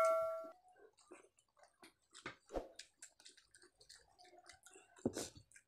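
A chime sound effect rings out and fades within the first half second. Then come soft eating sounds from people eating rice by hand: chewing, fingers working food on the plates, and small clicks, with a sharper tap about five seconds in.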